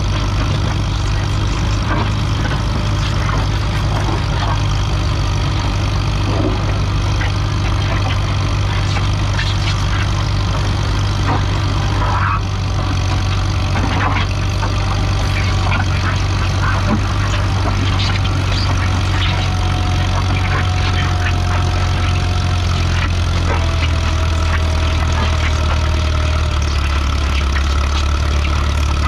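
Farmall B tractor engine running steadily under load as it pulls a weight sled, with scattered clicks and clanks from the sled. The engine note drops lower near the end as it lugs down.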